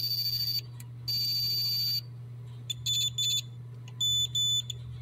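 Logic probe beeping as its tip is touched to pins on a pinball sound board: a steady high tone held for about half a second and then a second, then pairs of short, slightly lower beeps. The beeping shows signal activity on the pins. A steady low hum runs underneath.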